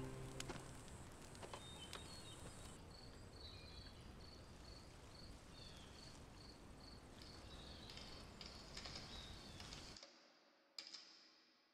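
Faint forest ambience: a soft hiss with a small high chirp repeated evenly about three times a second for several seconds, after music fades out at the start. Near the end it drops almost to silence, with a single short click.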